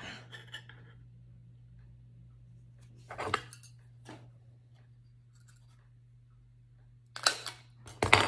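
Sparse clinks and knocks of small hard craft tools and a tray being handled on a worktop, with two louder clatters near the end, over a steady low hum.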